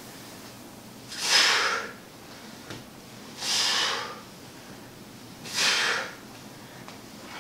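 A man's heavy exhalations: three forceful breaths out, about two seconds apart, one with each slow rep of a single-leg hip thrust.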